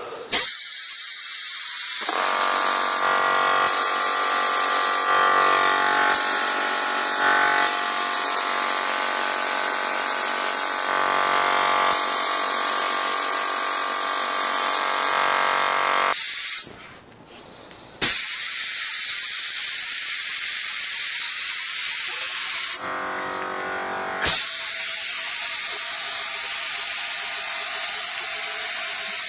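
Compressed-air gravity-feed paint spray gun hissing steadily as it atomises a canola-oil and potassium-silicate solution into a fine mist. The hiss stops once for about a second and a half a little past halfway, and drops away again briefly about three-quarters of the way through.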